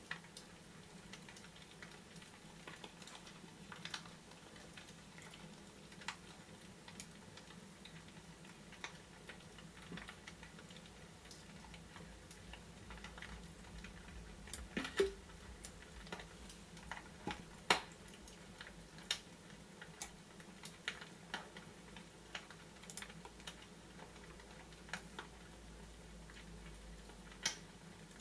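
Fireplace fire crackling: scattered, irregular sharp pops and snaps over a steady low hum.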